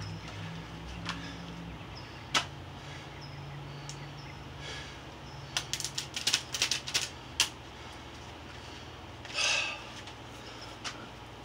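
Hand-handling noise from a small object being twisted and worked in the hands. There are a few sharp clicks, then a quick run of clicks and taps in the middle, and a brief rustle near the end, all over a low steady hum.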